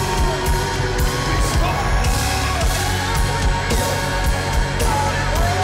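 Live worship music: a full band with a steady drum beat under a held, gliding sung melody.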